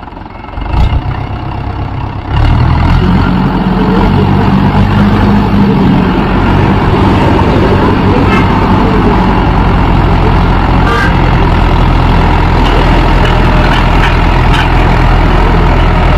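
Mahindra 415 DI tractor's four-cylinder diesel engine rising in speed about two seconds in, then running steadily as the tractor drives off pulling a spring-tine cultivator.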